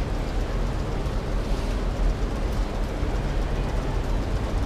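Steady city street noise: a constant low rumble of traffic with general street hubbub, no single event standing out.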